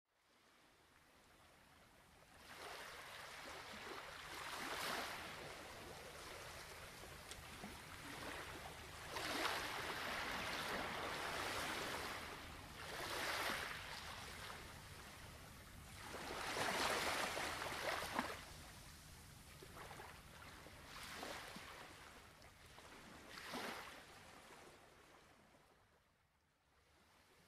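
Gentle waves: a soft wash of water that swells and fades every few seconds.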